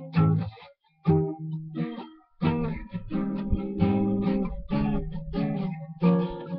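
Freshly restrung acoustic guitar being strummed and picked in chords, with brief breaks about one and two seconds in, then steadier playing.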